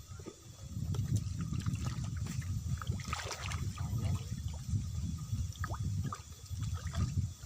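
Water splashing and trickling, with a louder splash about three seconds in, over a low rumble.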